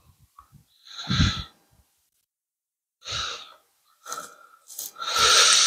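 A man breathing out heavily into a close microphone several times, the last and longest a loud sigh near the end.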